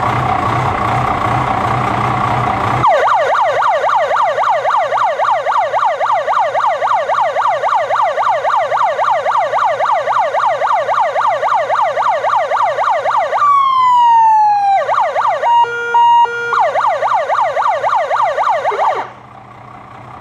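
Fire brigade vehicle's electronic siren running a fast yelp, about four sweeps a second, after a few seconds of loud noise. Near the middle the yelp breaks for one falling tone and a short stepped run of steady tones, then yelps again and stops near the end.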